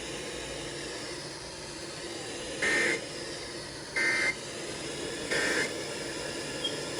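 Three short bursts of EAS (SAME) digital data tones, the End of Message signal that closes an alert, each about a third of a second long and evenly spaced about a second and a quarter apart, over steady radio static hiss.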